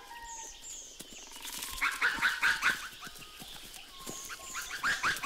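Ring-tailed lemurs calling in two quick runs of short, sharp yapping calls, one in the middle and one near the end: the calls of males squabbling during a fight.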